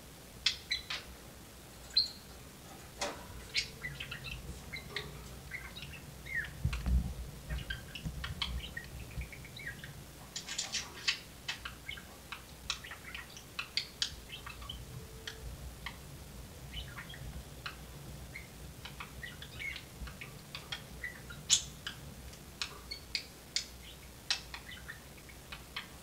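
Pet budgerigars chattering: an irregular stream of short chirps, clicks and squeaks, with a low thump about seven seconds in.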